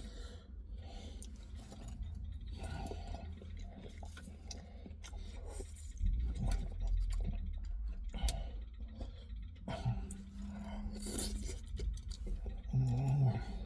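Eating sounds: chewing and small clicks and clinks of a plastic fork in a takeaway kebab container, over a steady low room hum. A short low tone sounds near the end.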